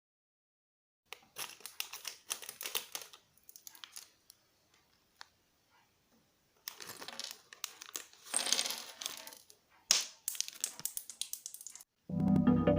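Small plastic toy-brick pieces clicking and clattering, with plastic packaging crinkling, in several irregular bursts with short pauses between. Music starts near the end.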